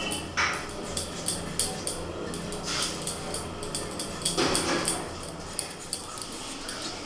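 Potato being peeled against the curved blade of a boti: a series of short scrapes and clicks.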